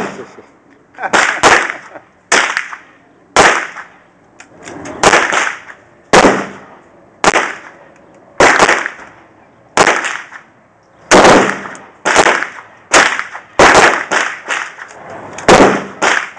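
Gunfire at a shooting range: about twenty sharp shots at irregular intervals, some in quick pairs, each trailing off in echo.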